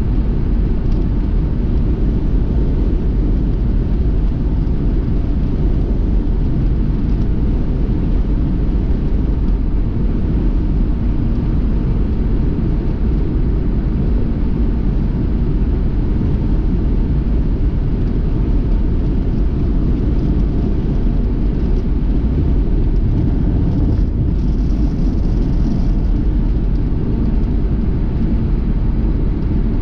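Steady low road and engine rumble of a car driving along, heard from inside, with a brief higher hiss about three quarters of the way through.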